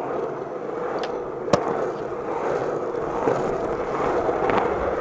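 Skateboard wheels rolling steadily over smooth concrete, with a sharp clack of the board about a second and a half in and a few lighter clicks later.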